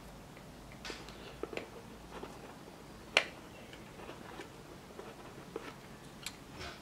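Scattered light clicks and taps of a green plastic pry tool working at the seams of a small plastic TV-box case, with one sharper click about three seconds in.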